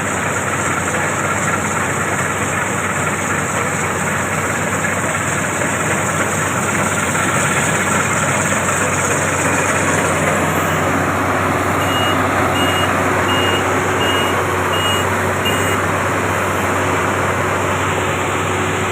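Combine harvester running steadily at working speed. About two thirds of the way in, a reversing alarm gives a string of short, evenly spaced high beeps.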